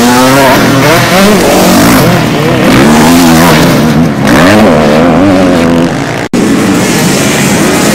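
Off-road racing motorcycles revving hard, their engine pitch repeatedly climbing and dropping with the throttle as riders charge up a rise and over a jump. The sound cuts out for an instant about six seconds in.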